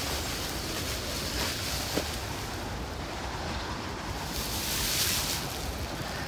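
Steady rushing noise, like wind or surf, swelling briefly about five seconds in.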